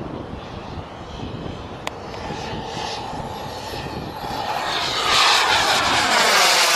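Black Mamba microturbine of a Feibao Mirage F1 model jet running at speed as the jet flies past. Its hiss grows much louder about five seconds in, with a sweeping, falling tone as it passes close.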